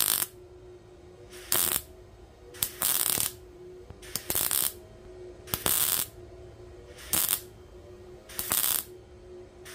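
Vevor MIG welder arc crackling in seven short trigger bursts, each under a second, about one every second and a half, with a faint steady hum between them. The short pulses stitch weld across a wide gap in thin sheet metal, building up weld on each side without burning through.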